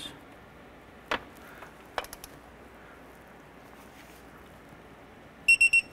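Torque wrench tightening a starter mounting bolt: a couple of faint metallic clicks, then four quick high-pitched beeps near the end.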